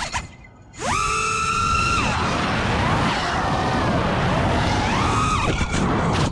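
FPV quadcopter's Emax Eco brushless motors and propellers heard from on board. The throttle is cut to near quiet just after the start, then punched to a high whine that holds for about a second and drops away. Rushing air follows, and the whine rises again briefly about five seconds in.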